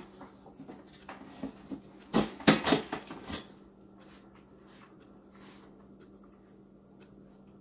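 Metal-framed dining chairs being lifted and stacked onto each other, knocking and clattering, with the loudest knocks bunched about two to three seconds in before it goes quieter. A steady low hum runs underneath.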